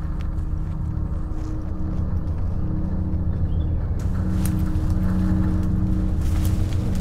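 A low, steady droning hum made of several held tones, growing slightly louder. From about four seconds in, branches and leaves rustle and twigs crack as someone pushes through dense undergrowth.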